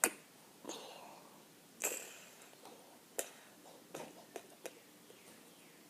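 Slime face mask making short wet clicks and pops as it peels and slips off the face, about seven in a few seconds, some with a brief hissy tail.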